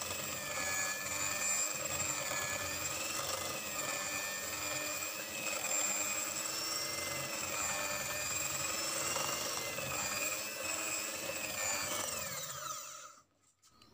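Electric hand mixer running steadily, its beaters whipping white icing cream into frosting in a bowl. Near the end the motor winds down and stops.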